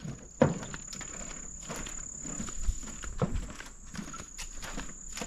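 Footsteps on a raised metal-grate walking boardwalk, with a sharp knock about half a second in and steps following at a walking pace. A steady, high-pitched insect drone runs behind them.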